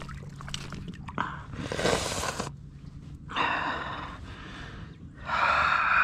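A man's heavy breathing: three long, breathy exhales a second or two apart.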